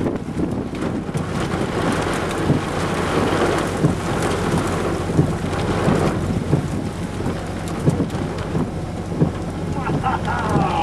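Rain and wind from a tornadic supercell beating on a vehicle: a steady rush of rain with scattered drops striking the glass, over a steady low hum.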